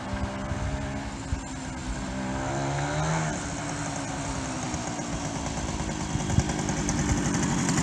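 K11 motorcycle engine running during a ride, its pitch rising as it revs up to about three seconds in, then dropping back and running steadily, growing louder near the end. The bike's clutch is shot.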